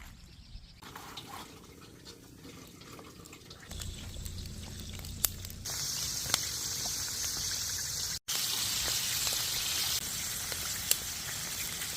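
Running water, quiet and trickling at first, then louder and fuller from about halfway, with a few sharp clicks. It drops out abruptly for a moment about two-thirds of the way in.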